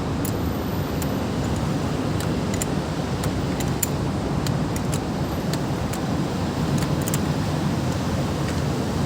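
Steady vehicle and traffic noise, with scattered light clicks through it.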